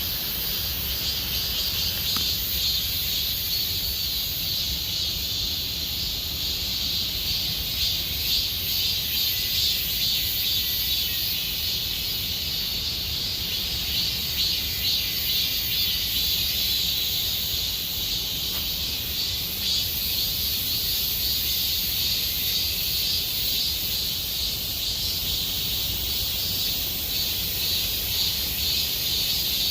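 Chorus of cicadas singing in summer forest trees: a steady, shrill buzzing that swells and ebbs a little without stopping, with a faint low rumble underneath.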